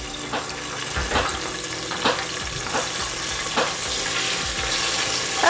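Beer-battered chicken deep-frying in a pot of hot oil: a steady sizzle with sharp pops and crackles about once a second.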